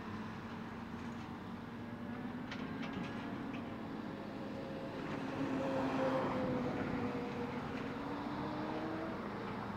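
Diesel engines of a Cat 330C and a Kobelco excavator running as the machines work, a steady drone. About halfway through the engine note rises slowly and grows louder as one machine takes hydraulic load. A few faint knocks come about two and a half seconds in.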